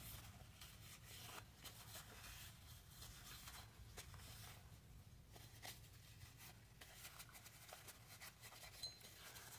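Faint rubbing and handling noises, with a few light ticks: a solvent-dampened paper napkin being wiped inside and along a Glock pistol's slide.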